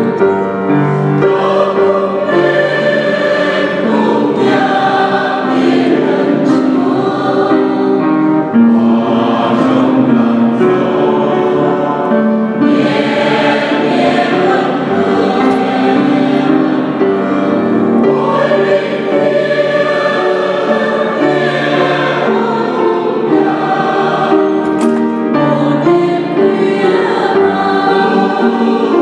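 Mixed church choir singing in harmony, accompanied by a grand piano.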